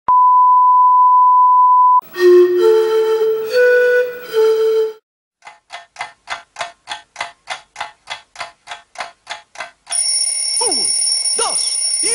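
A steady 1 kHz test tone with the colour bars for two seconds, then a short phrase of a few electronic musical notes. Next come about four quick ticks a second for some four seconds, and about ten seconds in, a high ringing tone with quick falling swoops: intro sound effects for an animated logo.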